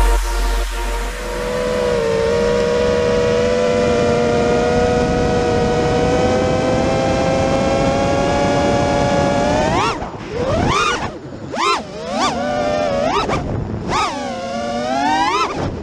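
Brushless motors and propellers of a 5-inch FPV freestyle quadcopter whining at a steady high pitch, then sharply rising and falling in pitch several times from about ten seconds in, as the throttle is punched and dropped.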